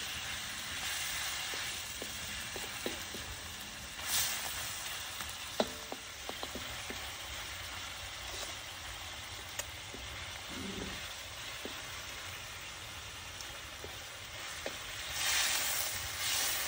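Stir-fry sizzling steadily in a steel wok, with a wooden spatula clicking and scraping against the pan as it is stirred. The sizzle swells louder about four seconds in and again near the end as the food is turned.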